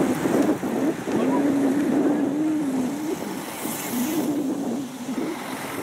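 A following vehicle's engine running, its drone rising and falling a little with the throttle, under steady wind noise.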